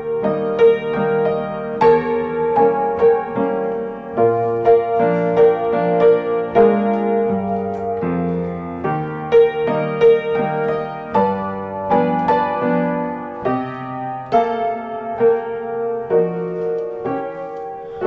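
Solo piano music: a steadily repeated middle note over changing chords and a moving bass line.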